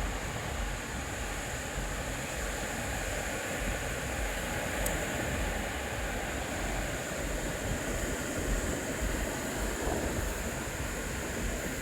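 Ocean surf washing on the beach, a steady wash of noise, with wind rumbling on the microphone.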